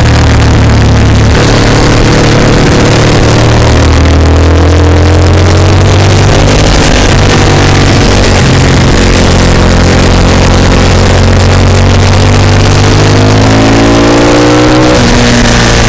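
Motorcycle engine at racing speed, its pitch climbing under acceleration and falling off between throttle openings, then climbing steeply and dropping at a gear change near the end. Heavy wind noise on the microphone.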